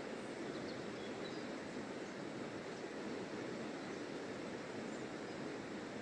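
Shallow river running over stones, a steady rushing wash, with a few faint bird chirps about a second in and again near the end.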